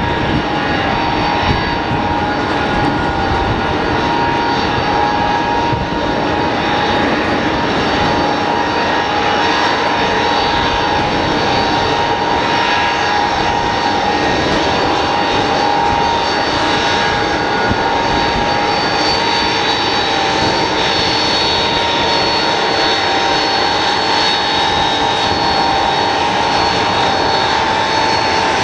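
Tupolev Tu-154M's three rear-mounted Soloviev D-30KU-154 turbofan engines running at taxi power. A steady jet whine with a constant high whistle over the rush of the engines.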